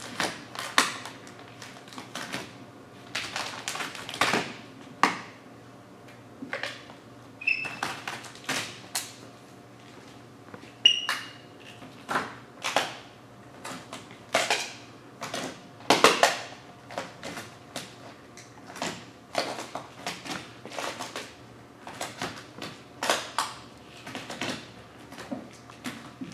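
Sheet of vinyl wrap film crinkling and crackling in irregular, uneven sounds as it is lifted, stretched and pressed down by hand onto a car hood, with two short squeaks.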